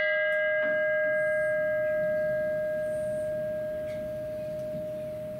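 A bell rung once in remembrance after a name is read, its single clear tone ringing on and fading slowly.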